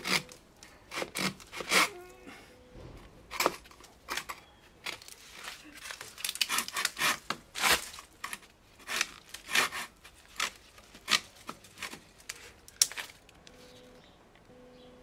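Parkside (Lidl) Japanese-tooth pruning saw cutting through a thin trunk, an uneven run of short rasping strokes of the blade through wood. The strokes stop about two seconds before the end. The cut is hard going: the cheap saw keeps binding in the wood.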